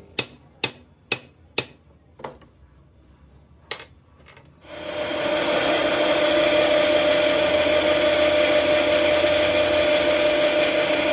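Four sharp metal knocks about half a second apart, then a few lighter taps. About four and a half seconds in, a pillar drill press starts and runs steadily with a constant hum as it drills a small steel part.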